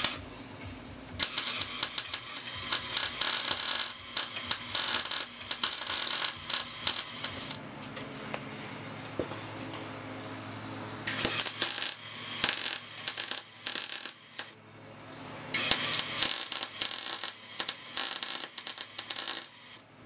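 Wire-feed welder arcing on square steel tubing: three runs of crackling sputter, the first about six seconds long and the next two a few seconds each, with short pauses between.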